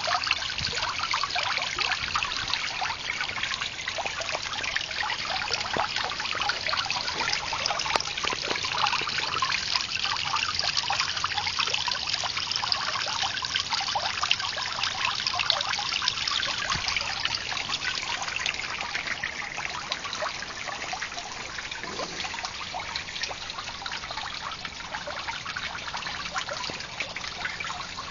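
Water from a garden water feature trickling steadily, a little fainter in the later part.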